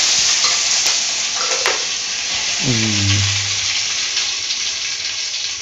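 Mustard seeds, fennel, cumin and curry leaves sizzling in hot oil in a steel pan. A steady frying hiss, with a brief voice about three seconds in.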